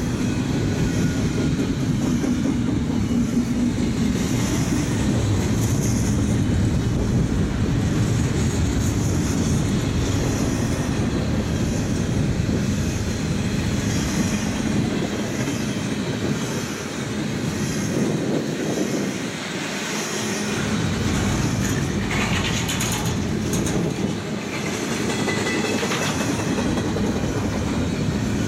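Double-stack intermodal freight cars rolling past: a steady low rumble of steel wheels on rail, with a clickety-clack that repeats about once a second as the wheel sets cross the rail joints.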